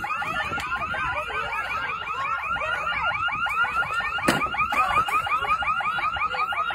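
Electronic alarm siren sounding continuously, a rapid warble of quickly repeating up-and-down tones. A single sharp knock cuts in about four seconds in.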